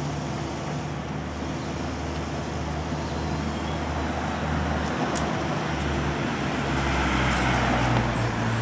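Road traffic: a vehicle engine's steady low hum with road noise, swelling louder over the last couple of seconds as a vehicle draws near.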